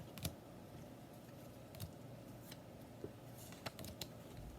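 Trading cards being handled and flipped through one by one: a few faint, sharp clicks and card-on-card snaps over a quiet background.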